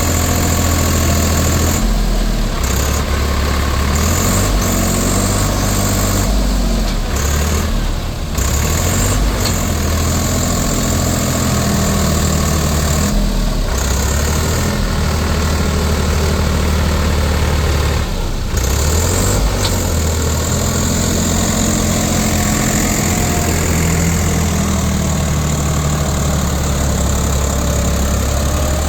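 Diesel engine of a tractor or backhoe loader running steadily and loudly, its low tone shifting up and down several times as the revs change.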